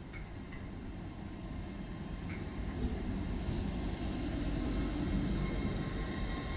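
LNER Class 800 Azuma train pulling out and rolling past close by, its low rumble growing steadily louder as it gathers speed.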